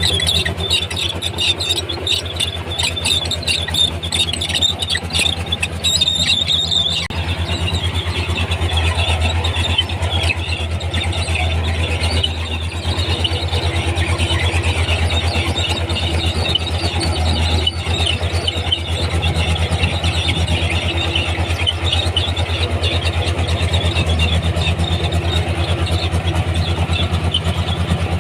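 Komatsu D31P crawler bulldozer working: its diesel engine runs steadily with a fast low throb, while the steel tracks give off high-pitched squeaks and clatter, strongest in the first several seconds.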